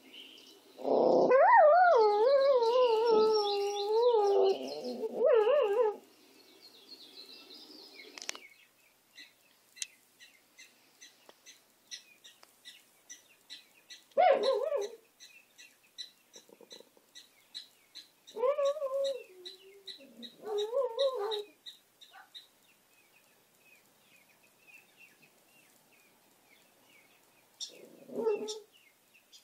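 Small white dog howling: one long wavering howl in the first few seconds, then shorter, softer howls near the middle and a brief one near the end. Faint bird chirping in the background between the howls.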